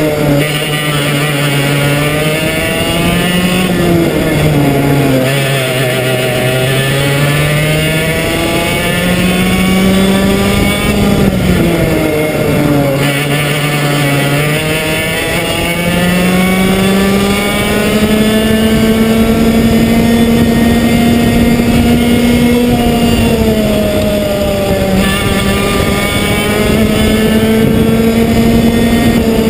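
Komet two-stroke kart engine at racing speed. Its pitch drops as the kart slows for corners about five and thirteen seconds in and climbs again under acceleration, then holds high and steady through the last half. Wind and track noise hiss underneath.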